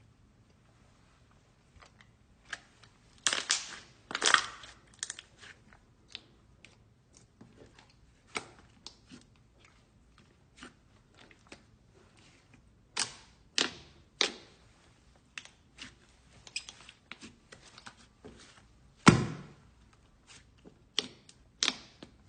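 Slime being squished and stretched by hand, giving irregular sticky pops and crackles, with louder clusters of pops a few seconds in, again in the middle, and one loudest pop near the end.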